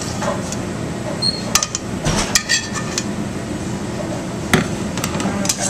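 Metal tongs clinking against a stainless steel bowl and a ceramic plate while vegetables are served: a handful of sharp clinks, some ringing briefly, over a steady low hum.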